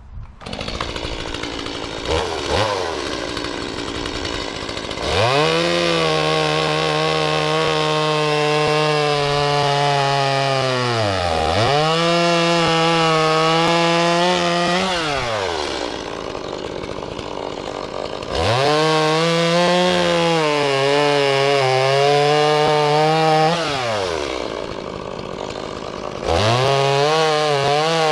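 Gas chainsaw idling, then run at full throttle to cut through a log three times, dropping back to idle between cuts, with a brief dip in revs partway through the first cut.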